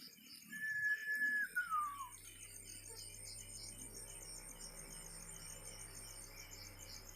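A single clear whistle-like note, held for about a second and then sliding down in pitch, over steady rhythmic chirring of night insects such as crickets. A low steady hum comes in about a second and a half in.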